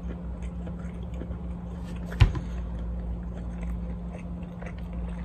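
A person chewing a hamburger with the mouth closed: faint, scattered wet mouth clicks over a steady low hum. One sharp click about two seconds in.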